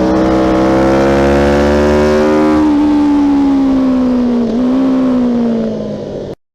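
Loud engine held at high revs, its pitch easing upward and then falling slowly, with a brief dip about four and a half seconds in. The sound cuts off abruptly about six seconds in.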